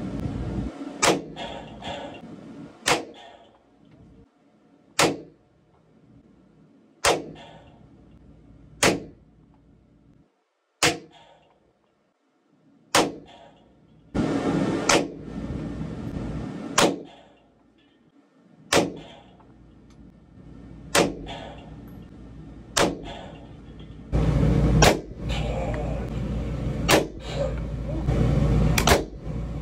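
Semi-automatic pistol shots fired one at a time at a slow, even pace, about one every two seconds.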